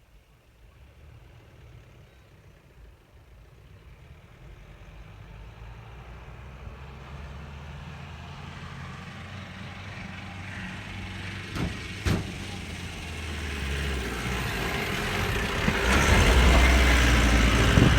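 A diesel pickup's engine working hard, growing steadily louder as it approaches and loudest near the end. Two sharp clicks come about twelve seconds in.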